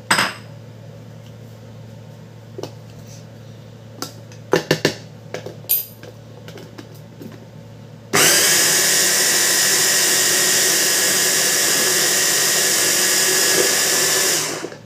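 Electric mini chopper's motor running steadily for about six seconds with a high whine, mincing garlic cloves, and stopping just before the end. Before it starts, a few clinks of the spoon and glass bowl as the top is fitted.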